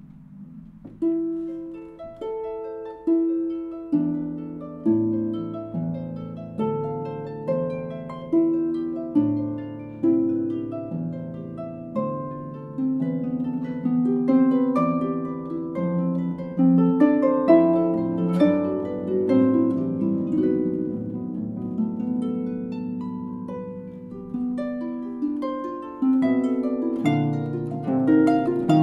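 Concert harp played solo: plucked notes and chords that ring on and fade, with a strong new pluck roughly once a second, starting about a second in after a fading note.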